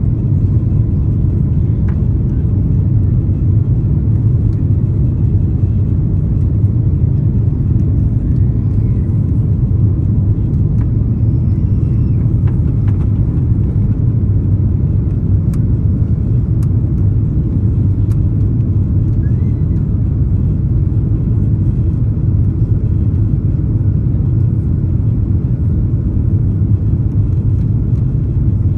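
Steady low rumble of an Airbus A330-300 airliner's engines and airflow, heard inside the passenger cabin, unchanging throughout.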